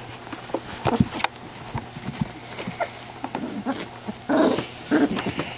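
Puppies playing and chewing, with scattered small clicks and scuffles. A short, louder puppy vocal sound comes about four seconds in, and another soon after.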